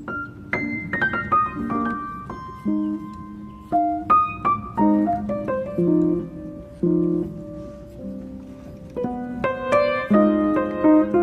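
Background piano music: a quick falling run of notes about half a second in, then slower notes and chords.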